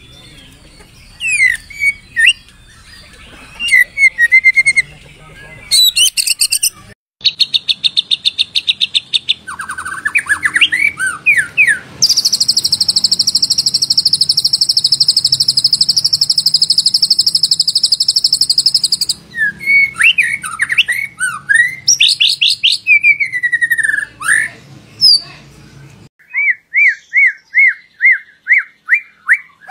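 White-rumped shama (murai batu) singing a varied song of whistled phrases and fast repeated notes, with a long, high buzzing trill held for several seconds in the middle and a quick series of repeated whistled notes near the end.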